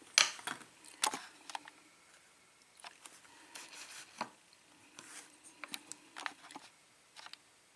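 Scattered light clicks and ticks of small metal lock pins and parts being handled and set down, with faint rustling between them.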